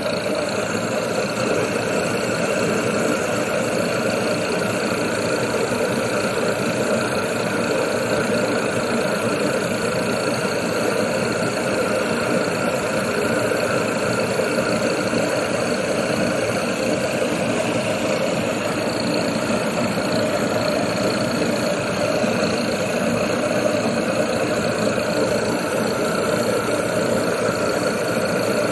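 Waste-oil furnace burner running, the used motor oil atomised into the firebox by a compressed-air spray gun: a loud, steady rushing noise of air jet and flame that holds even throughout.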